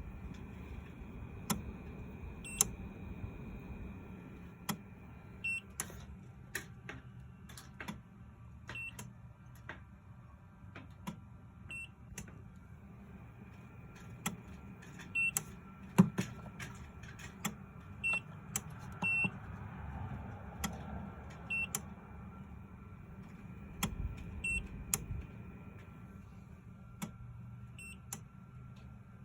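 An Oukitel device repeatedly clicking and giving short high beeps at irregular intervals, roughly one every second or so, over a faint steady hum.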